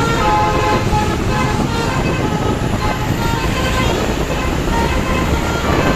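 Bus 'telolet' Basuri multi-tone horn playing short runs of notes near the start and again about four seconds in. The notes are half-buried in loud wind and road noise from moving alongside the bus.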